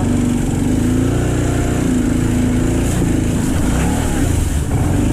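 Kawasaki Prairie 650 ATV's V-twin engine running, its pitch rising and falling several times as the throttle is opened and eased off.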